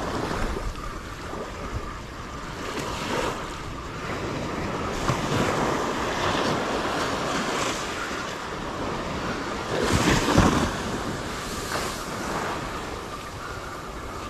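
Small waves breaking and washing up on a sandy beach, swelling and fading in turn, with a louder surge about ten seconds in. Wind buffets the microphone.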